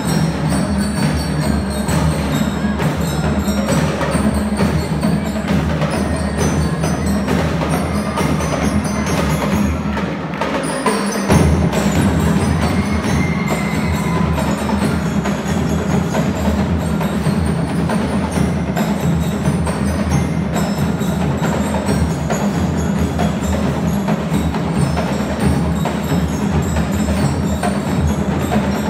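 Drum and lyre corps playing live: marching drums beat a dense rhythm under the ringing melody of bell lyres and mallet percussion. About eleven seconds in, after a brief dip, the low drums come in heavier.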